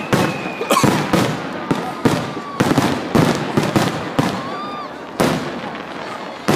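Aerial fireworks shells bursting in quick succession, about two or three bangs a second, with a short lull a little after four seconds in before the bursts resume.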